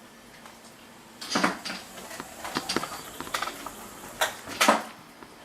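Close handling of a camera and its lens-cleaning pad: a string of knocks, clicks and scrapes. The loudest knocks come about a second and a half in and twice after four seconds.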